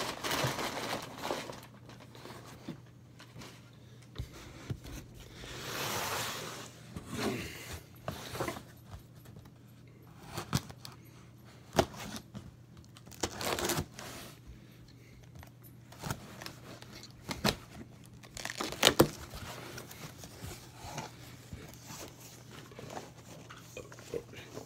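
Rummaging in a cardboard shipping box: packing material rustling and crinkling, cardboard scraping, and scattered sharp knocks and clicks, the loudest about 19 seconds in.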